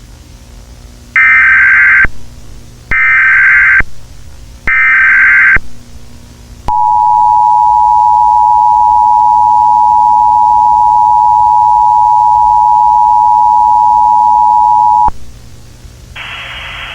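Emergency Alert System signal: three short bursts of warbling digital data tones (the SAME header), each about a second long, then the steady two-tone attention signal held for about eight seconds before cutting off. A steady hiss follows near the end.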